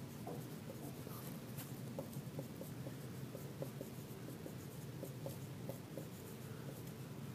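Dry-erase marker writing on a whiteboard: a string of faint short squeaks and scratches from the felt tip as the letters are drawn, over a steady low room hum.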